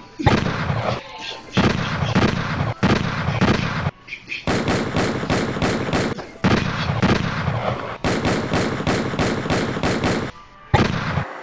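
Gunfire sound effect: several loud bursts of automatic fire, separated by short breaks, two of them long runs of rapid shots at about five a second.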